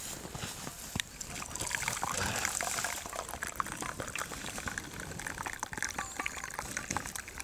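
Hot tea poured from a vacuum flask into its steel cup, a steady trickling stream of liquid filling the cup, with a single sharp click about a second in.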